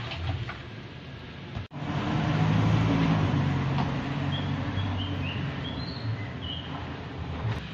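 Steady low motor-vehicle engine hum, with a handful of short high bird chirps about halfway through.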